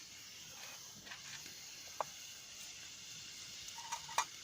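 Steady, faint hiss of cooking on a camp stove, with a single sharp click about two seconds in.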